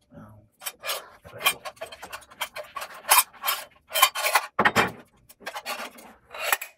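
Submersible pump being screwed by hand into the threaded spacer fitting of a metal floating sumpster: irregular scraping, rubbing and clicking of the threads and parts turning against each other.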